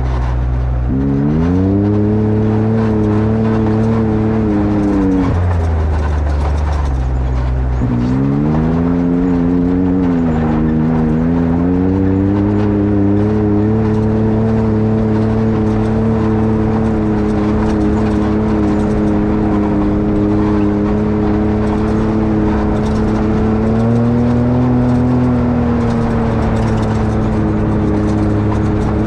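Can-Am Maverick X3 X rc side-by-side's three-cylinder engine revving up from idle about a second in and dropping back to idle around five seconds. It then pulls up again and holds a steady pitch under way, with a small rise near the end. The machine is in limp mode, which the owner puts down to a bad drive belt.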